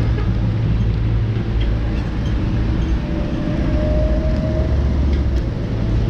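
Street traffic: the steady low rumble of a motor vehicle's engine running close by.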